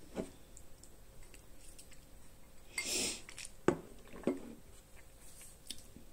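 Faint mouth sounds of eating: a few soft wet clicks, with a short breathy sound about three seconds in.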